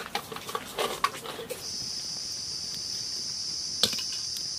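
Light clicks and knocks of hands working cut catfish pieces in a metal pan, then a steady high insect drone with a single sharp clank near the end as an iron kadai is set down on the stone hearth.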